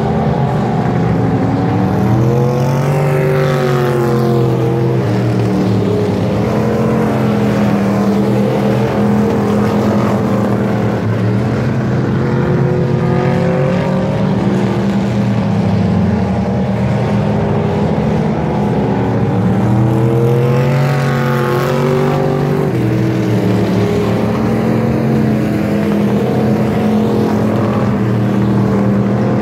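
A pack of dirt-track race cars running laps, their engines drowning each other out in a steady drone. Twice the pitch of the engines sweeps up and then down as cars accelerate off a turn and pass by.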